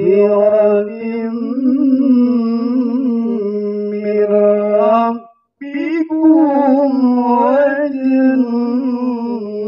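Male qari reciting the Quran in the melodic tilawah style: long held notes with wavering ornaments, in two phrases with a short breath about five seconds in.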